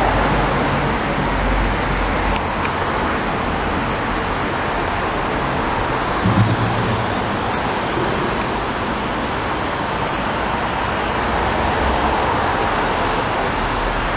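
Road traffic: cars driving past and over a railway level crossing beneath a concrete road bridge, a steady noise of tyres and engines with a brief low swell about six seconds in.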